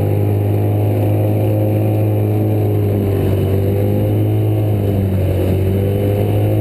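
Boat's outboard motor running steadily at an even speed.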